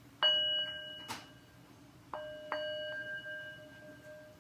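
Brass singing bowl hit by its mallet three times, once loudly about a quarter second in and twice close together about two seconds in, each hit ringing out in a clear chime of several steady tones that fades slowly, with a short click about a second in. The mallet is meant to be circled around the rim to draw out a continuous singing tone, but here the bowl only rings from the hits: the attempt to make it sing is failing.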